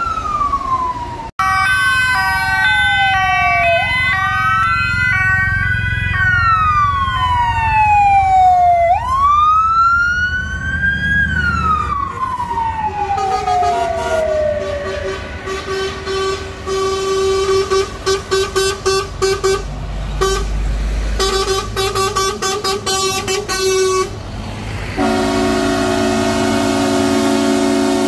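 Emergency-style sirens wailing, rising and falling repeatedly, with a second siren stepping between tones. From about halfway, truck air horns sound in many short blasts, and near the end a multi-note air horn holds a long chord, over the low rumble of passing lorry engines.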